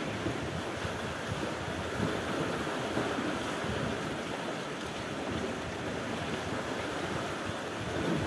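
Sea waves washing in choppy shallows, with wind buffeting the microphone; a steady noise with no distinct events.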